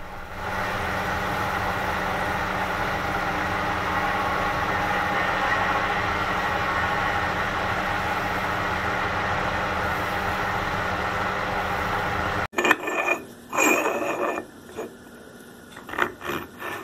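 Metal lathe running while abrasive cloth is held against the spinning silicon-bronze shaft to polish it to fit: a steady hiss over a steady hum. It cuts off suddenly about twelve seconds in, giving way to a few scattered knocks and scrapes of the steel shaft being handled in its iron gear.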